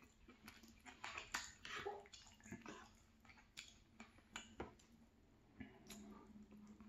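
Soft, close-up mouth sounds of a man chewing chicken and vegetable stir fry: irregular wet smacks and clicks, a few a second.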